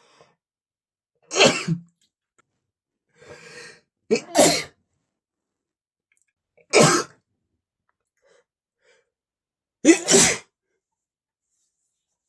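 A man sneezing four times, about three seconds apart, powerful sneezes that the uploader puts down to an allergy to flowers. Some come in two parts, and a fainter breath is heard before the second.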